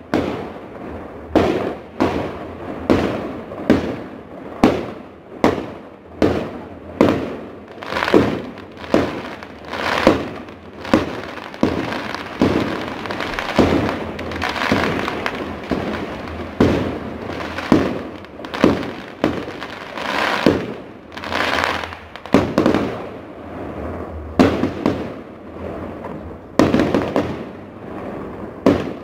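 Aerial fireworks bursting in quick succession, about one to two bangs a second, each with a short echoing tail. A thicker stretch of crackle and overlapping bursts comes in the middle.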